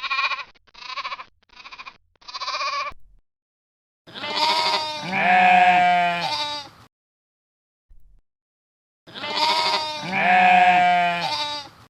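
Sheep bleating: four short bleats in quick succession, then two long bleats a few seconds apart.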